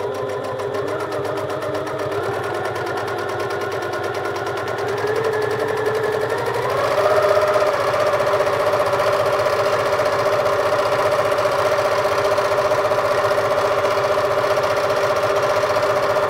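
Janome 1600P high-speed straight-stitch sewing machine running continuously while stitching free-motion through cotton. It speeds up about seven seconds in and then runs steadily at the higher speed.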